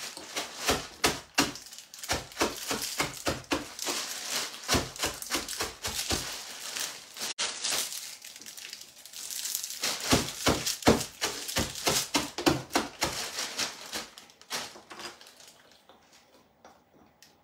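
Rolling pin knocking on a plastic bag on a wooden counter to crush its contents, a rapid run of knocks with the bag crinkling. The knocking comes in two spells with a pause around seven to ten seconds in, and dies away near the end.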